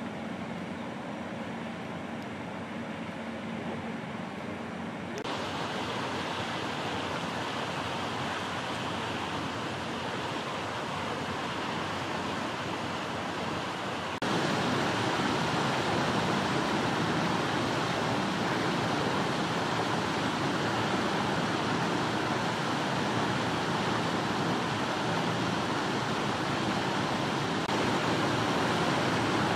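Steady rushing outdoor background noise with no distinct events in it. It jumps louder abruptly about five seconds in and again about fourteen seconds in.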